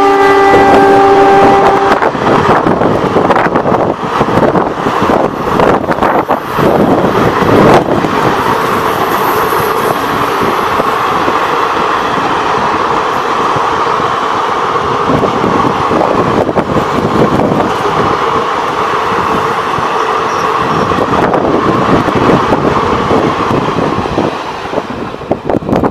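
Express train coaches rushing past at speed: a steady rumble and rattle of wheels on the rails, with irregular clicks. The train's horn is sounding at first and cuts off about two seconds in. The noise begins to fade near the end as the last coach goes by.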